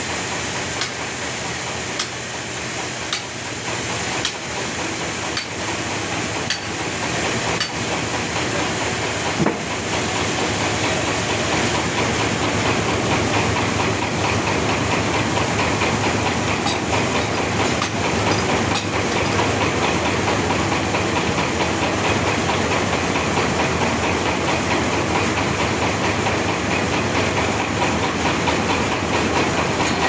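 Bandsaw sawmill running and sawing through a large trembesi (rain tree) log: a steady mechanical sawing noise with a light tick about once a second at first, growing a little louder about ten seconds in.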